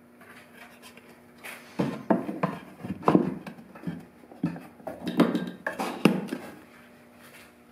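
Loose painted wooden panel being handled and set in place inside a plywood boat hull: a run of irregular wood-on-wood knocks and clatters over about five seconds, over a faint steady hum.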